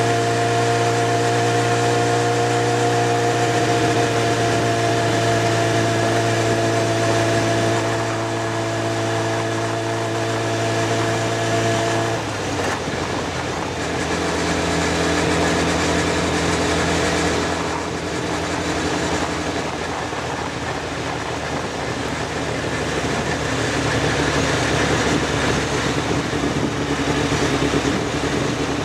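Motorcycle engine running at a steady note while riding along a road; about twelve seconds in the note changes abruptly, and afterwards the engine runs less evenly under more road and wind noise.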